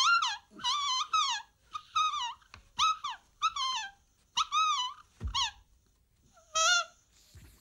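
Squeaky 'voice' of a glove-puppet dog, made with a squeaker: a rapid chatter of short, high squeaks that rise and fall. A dull thud comes about five seconds in, and a single squeak follows after a pause.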